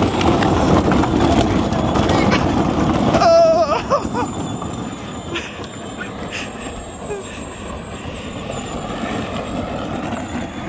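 Peg Perego Gator ride-on toy, its electric motors running on a 24-volt drill battery, rolling on hard plastic wheels over asphalt. The rumble is loud for the first three seconds, then drops and fades as the toy drives away. A brief voice about three seconds in.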